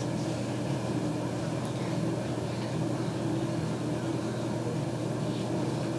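A steady low background hum with hiss and no distinct shot or impact.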